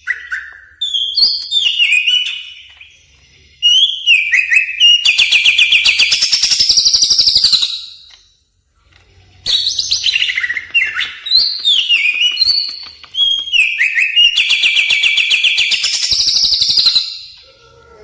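Cucak ijo (green leafbird) singing: quick whistled notes, many of them falling in pitch, each run building into a long, rapid trill. This happens twice, with a short pause about halfway.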